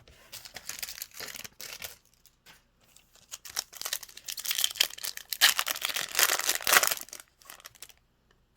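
Crinkling and tearing of a foil trading-card pack wrapper being handled and ripped open, a dense crackle of small clicks that grows loudest in the second half.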